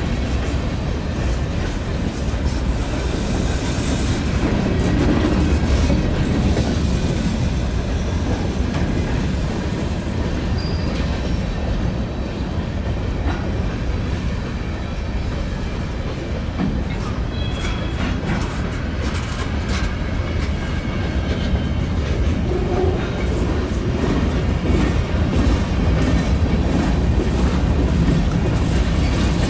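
A train's railcars rolling past close by with a steady heavy rumble and wheels clicking over the rail joints, with a few brief high wheel squeals.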